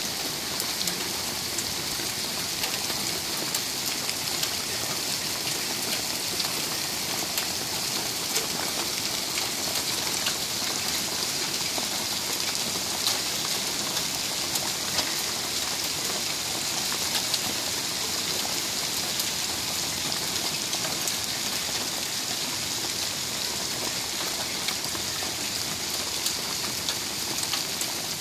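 Heavy rain mixed with small hail falling steadily: a dense, even hiss peppered with many sharp ticks of drops and hailstones striking.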